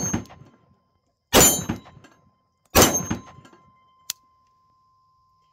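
A Rock Island Armory TAC Ultra 1911 pistol in 10mm firing Fiocchi ammunition: the tail of one shot at the start, then two loud shots about a second and a half apart, while a steel gong target rings faintly. About four seconds in there is a single sharp click as the hammer falls on a round that fails to fire, leaving only a primer strike.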